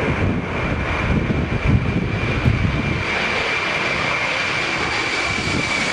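Airbus A320 jet engines running on landing approach: a steady high whine over a rushing noise. An uneven low rumble underneath fades about three seconds in.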